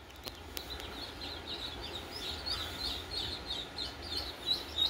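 Blue Runner ducklings peeping: many short, high peeps that grow busier from about two seconds in. A couple of light knocks near the start.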